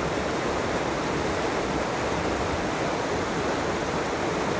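Fast mountain stream rushing over rocks in whitewater riffles, a steady, even rush of water.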